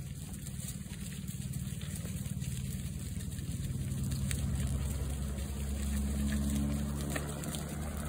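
Helicopter's rotor and engine, a steady low throb that grows louder from about four seconds in, the aircraft spreading agricultural lime over the adjoining field.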